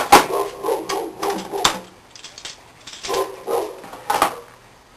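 A sharp knock at the start, then a dog barking in short bursts: a cluster of barks over the first couple of seconds, a pause, then a few more barks near the end.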